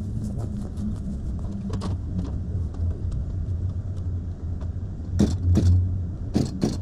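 A steady low engine hum, with scattered faint clicks and a few louder knocks near the end.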